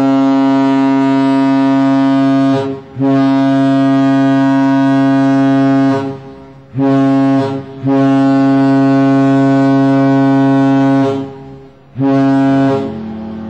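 Princess cruise ships' horns sounding a series of blasts: a loud, steady, deep tone with many overtones. Two long blasts of about three seconds follow the first, with brief breaks between them, and two short blasts of under a second come in between.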